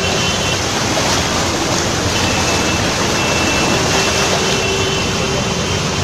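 Steady, loud rushing of floodwater, even and unbroken, with faint thin steady tones above it.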